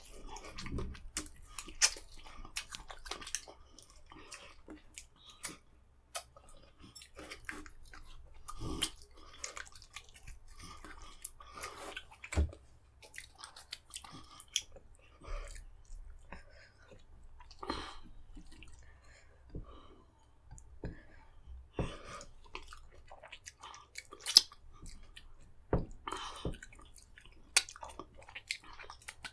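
Wet chewing and lip smacking of fufu and vegetable soup eaten by hand, with many irregular sharp mouth clicks spread throughout.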